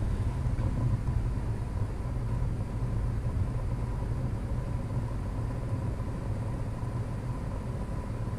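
Steady low rumble of background noise, with a faint steady tone above it.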